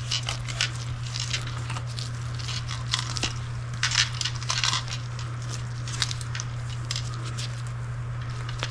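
Irregular scratchy clicks and rustles of plastic fittings being handled as a Waterpik shower head is screwed clockwise by hand onto its hose connector, over a steady low hum.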